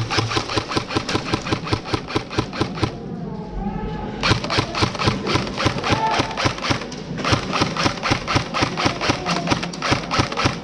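Airsoft guns firing full-auto in three long bursts of rapid, even shots, about nine or ten a second, with short breaks about three seconds in and again about seven seconds in.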